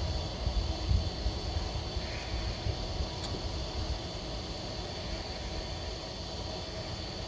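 Lennox rooftop gas heating unit running on a heat call, a steady mechanical hum and rush from its inducer motor and burners, while the blower motor fails to start. Low rumbling in the first second or so.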